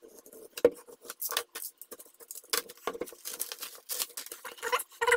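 Plastic cling film crinkling and crackling as it is pulled off laser-cut MDF kit sheets, in many short irregular rustles. Near the end a wavering, squeaky pitched sound sets in.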